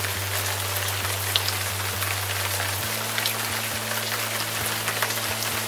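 Background music track of steady rain-like hiss over long sustained low notes, which shift to a new chord about three seconds in.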